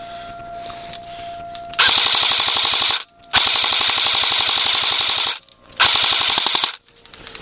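Airsoft gun firing three rapid full-auto bursts, the middle one the longest, each starting and stopping sharply.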